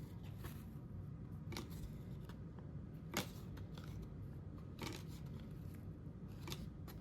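Trading cards being handled and flipped through by hand: faint, short slides and taps of card stock every second or two, the loudest about three seconds in.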